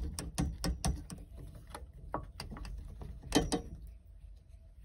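Metal tool and parts clicking as the shifter coupler is worked off a 1965 VW Beetle's shift rod: a quick run of metallic clicks, about four or five a second, that stops about a second in, then a few scattered clicks and a sharp double click about three and a half seconds in.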